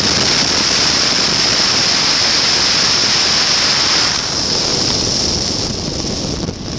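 Wind rushing over the microphone of a Pegasus Quantum 912 flexwing microlight trike in flight, with the engine running beneath it. The rush is loudest for about the first four seconds, then eases.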